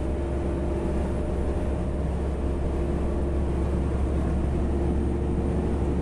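Heavy truck cruising on a highway, heard inside the cab: a steady low engine drone with an even hum and road and wind noise.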